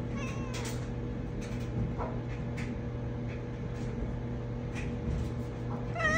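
A Manx cat meows twice: a short, faint falling meow just after the start and a louder falling meow near the end. Under the meows runs the steady hum of a laundry machine.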